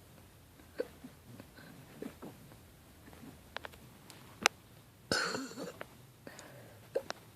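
A person hiccuping: several short, sharp hics spaced a second or more apart, the loudest about halfway through. A longer breathy sound follows a little after five seconds.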